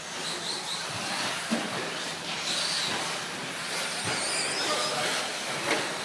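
Radio-controlled 4wd short course trucks racing on a carpet track: high motor whines rising and falling over a steady hiss, with a few sharp knocks.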